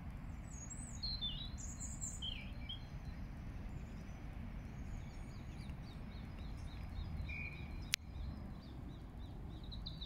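European starlings calling: a few high whistles and chirps in the first seconds, a run of quick repeated notes in the middle and more chirps near the end, over a steady low rumble. A single sharp click about eight seconds in.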